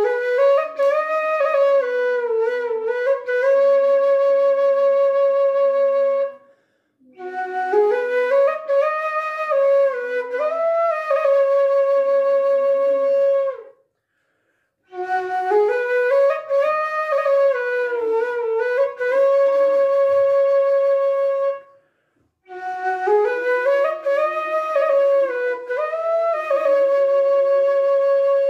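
A 54 cm bamboo suling (Indonesian end-blown flute) in F sharp is played in four similar melodic phrases. Each phrase ends on a long held note, with a short breath-gap between phrases. It is a maker's test of the flute's tone.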